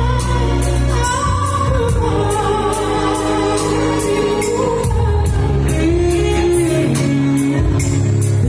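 A woman singing a melodious Gayo song over instrumental backing, with a sustained bass and a steady beat.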